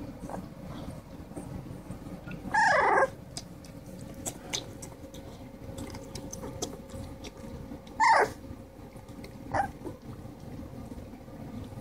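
Three-week-old blue pit bull puppies squealing while they jostle to feed: two loud, short cries a few seconds apart, each falling in pitch, and a weaker one soon after the second, over soft shuffling and nursing sounds.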